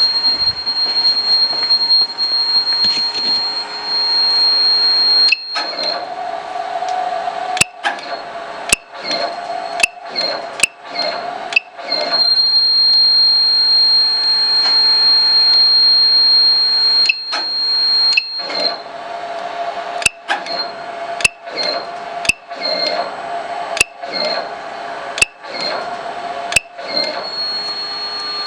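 DCZ70 robot giving a high-pitched buzz. Through two stretches the buzz keeps cutting out and restarting with sharp clicks about once a second.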